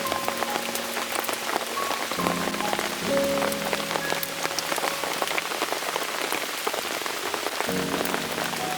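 Heavy rain pattering steadily on a polycotton tipi tent, a dense patter of quick drops. Soft background music tones come in briefly twice.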